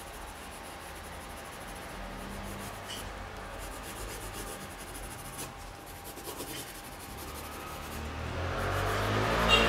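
Pencil lead rubbing on drawing paper as a portrait is shaded, a faint steady scratching. A low rumble swells louder near the end.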